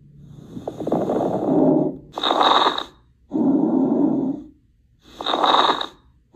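Lung sounds heard through a stethoscope with crackles: about two full breaths in and out, with brief ticks in the first breath in. The crackles are the sign of inhaled air meeting deflated alveoli or secretions.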